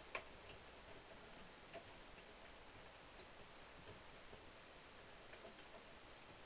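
Near silence with a few faint sharp clicks and light ticks, typical of small metal parts and hand tools being handled during disassembly of an RC truck.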